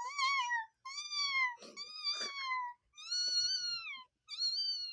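A girl imitating a kitten's meows with her voice: five high-pitched mews in a row, each rising slightly and then falling away at the end.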